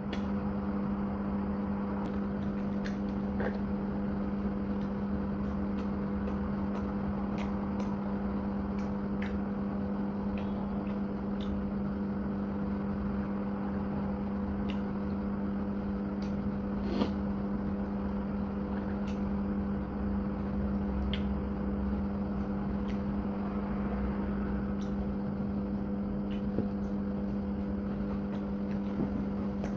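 A steady low machine hum, with scattered faint clicks and crunches of someone eating crispy fried chicken skin and rice by hand; one sharper click comes about halfway through.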